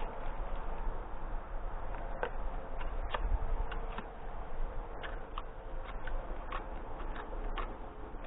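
Scattered light clicks and taps, irregular, about one or two a second, over a steady low rumble.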